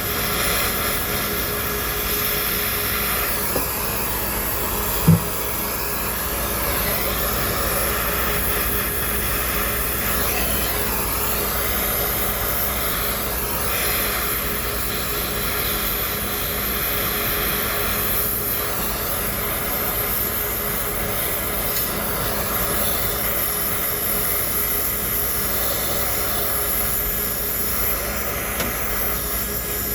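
Brazing torch flame burning steadily while copper refrigerant lines are brazed onto a compressor, with a single short thump about five seconds in.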